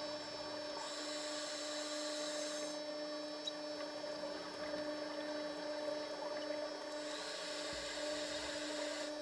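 Underwater recording with a steady low hum throughout and twice, about a second in and again near the end, a hiss of about two seconds from a scuba diver's regulator as air is drawn in.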